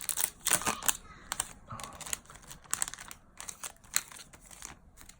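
Foil booster-pack wrapper crinkling and tearing as it is opened by hand. There is a dense flurry of crackles in the first second, then scattered rustles that thin out toward the end.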